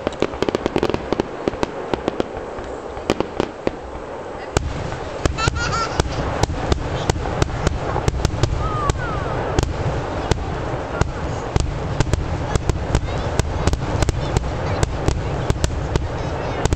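A fireworks finale: aerial shells bursting in a rapid, irregular run of bangs and crackles. About four and a half seconds in, a deep continuous rumble joins, and the bangs come thicker.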